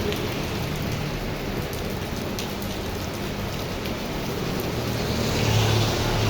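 Heavy rain pouring steadily, with a few sharp drip ticks. Near the end it swells briefly, with a low rumble underneath.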